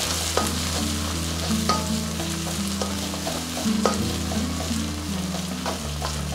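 Shredded cabbage, onion, green chilli and ginger stir-frying in oil on a high flame in a metal kadai: a steady sizzle, with a wooden spatula scraping through the vegetables and a few sharper knocks against the pan.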